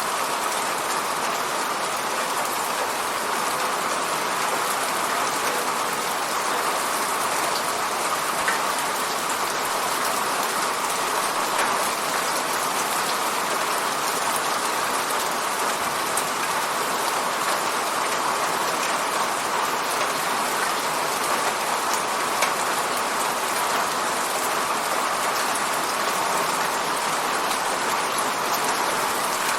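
Steady rain falling and pattering on a window, with a few louder single drop ticks.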